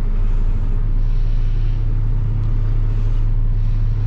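Delivery truck's engine running steadily with an even low hum, heard from inside the cab.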